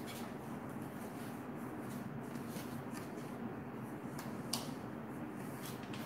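Dry cloth towel wiping the plastic drip tray of a towel warmer. It makes faint rubbing and a few light knocks over a steady low hum; the clearest knock comes about four and a half seconds in.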